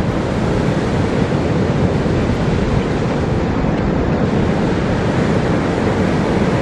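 Ocean surf breaking on a sandy beach, with wind buffeting the microphone: a steady, deep rushing noise.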